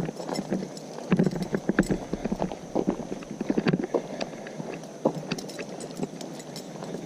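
Irregular clicks and crunches, uneven in spacing and loudness, over a steady background noise.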